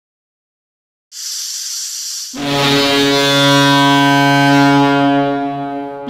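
Silence, then a short hiss, then Avangard Omsk's ice-hockey goal horn sounds a long, steady, low blast from about two seconds in.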